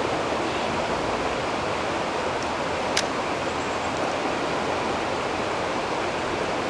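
A single sharp click about three seconds in, the shutter of a Regula King 35mm film camera firing, over a steady rushing noise.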